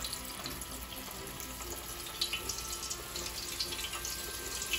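Flour-dredged fish pieces frying in hot oil: a steady sizzling hiss with scattered sharp crackles and pops.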